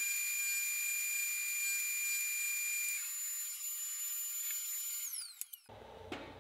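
Jointer and dust collector running, heard only as a thin high-pitched whine and hiss with steady tones. About five seconds in, the whine falls away as the machines spin down after being switched off, followed by a few faint clicks.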